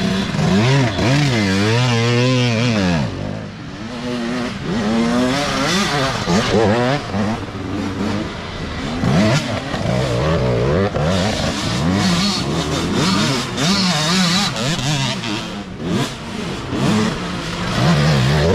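Youth dirt bikes racing past one after another through deep mud, their engines revving up and down with the throttle as each rider accelerates close by.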